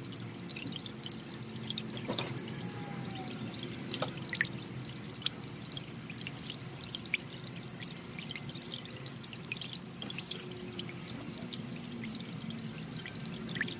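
Soft ambient background music with long held low notes, over a scatter of faint short ticks.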